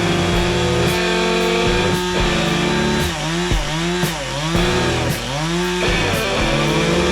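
Background music: distorted electric guitar playing notes that bend up and down, over a steady drum beat.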